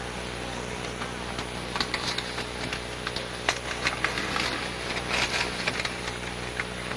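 Room noise on an old recording: a steady low electrical hum and hiss, with scattered soft clicks and brief rustling.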